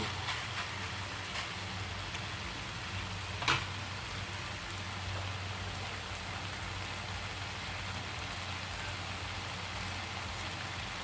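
Pork stir-fry sizzling steadily in a pan, with one sharp click about three and a half seconds in.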